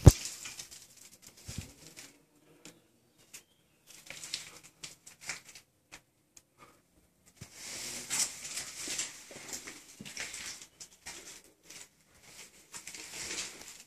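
Scattered clicks, crunches and scuffs of someone moving about on gritty concrete, opening with one sharp knock; the scuffing thickens into a longer run partway through and again near the end.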